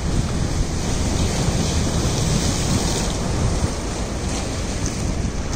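Wooden fishing trawler motoring past, its engine running under the rush of its bow wave and wake, with a heavy, uneven low rumble throughout.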